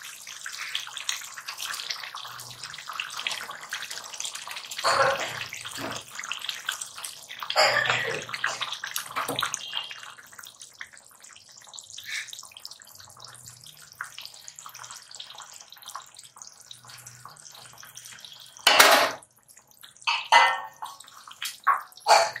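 Thick curry gravy bubbling at a simmer in a wok, with a few soft splashes in the first ten seconds as fried cabbage kofta balls are dropped in. A sharp knock sounds a few seconds before the end, followed by a couple more short knocks.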